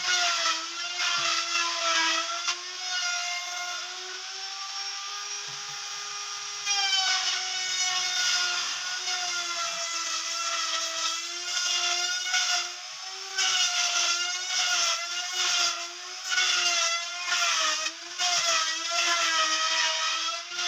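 Table-mounted wood router cutting a molding profile into long wooden strips. Its high motor whine sags in pitch each time a strip is pushed through the bit and rises again between passes, with cutting noise rising and falling.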